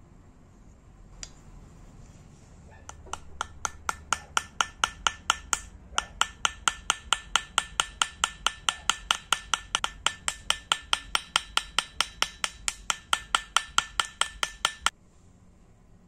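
Small hammer tapping rapidly on the brass pin of a horn-handled pocket knife set on a metal block, peening the pin over to rivet the handle. The light, ringing metallic taps come about four a second, with a short break partway through, and stop abruptly about a second before the end.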